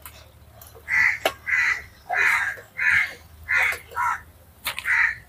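A crow cawing about seven times in a row, one harsh call roughly every two-thirds of a second. A few sharp metal clicks of a slotted ladle against the wok.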